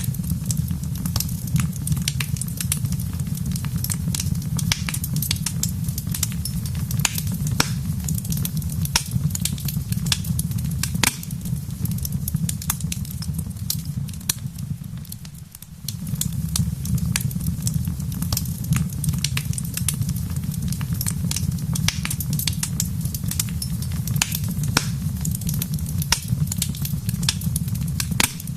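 Wood fire crackling, with many sharp irregular pops over a steady low rumble. The sound fades briefly about halfway through, then comes back.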